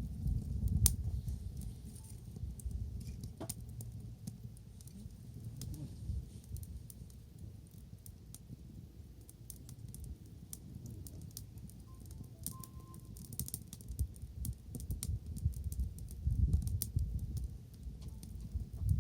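Wood fire crackling, with many small irregular pops and snaps, over a low rumble that swells near the start and again near the end.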